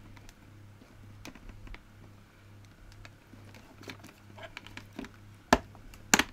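Small plastic clicks and scrapes as a screwdriver prises at the plastic handle on top of a Hoover Aquamaster vacuum cleaner. Near the end come two sharp, loud snaps about half a second apart, the handle's clips letting go. A steady low hum runs underneath.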